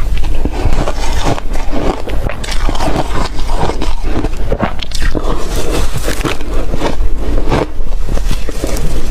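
Ice cubes being crunched and chewed close to the microphone: a continuous run of rapid, loud crunches and cracks.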